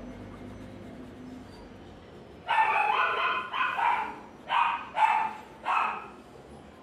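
A dog barking about five times in quick succession, starting a couple of seconds in.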